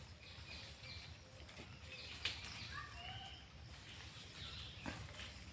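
Faint outdoor ambience: birds chirping in short, curved notes, one run of them stepping down in pitch around the middle, over a low steady rumble, with a sharp click a little after two seconds in and a softer one near the end.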